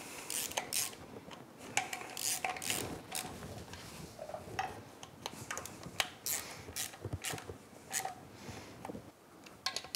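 Hand ratchet and socket tightening bolts into an engine block: scattered metallic clicks and clinks at an uneven pace.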